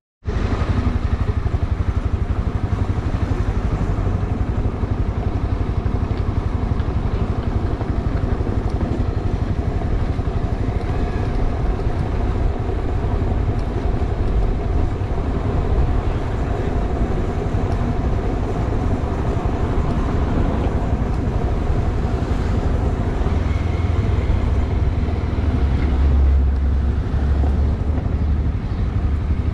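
Honda CB300R's single-cylinder engine running at a steady cruising pace while riding, mixed with wind and road rush. The sound cuts in abruptly just after the start and stays even throughout.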